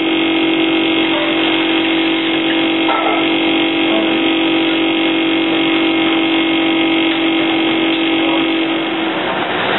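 Steady mechanical hum of kitchen equipment running: a constant low tone over a noisy drone, which drops away about nine seconds in. There is a light knock about three seconds in.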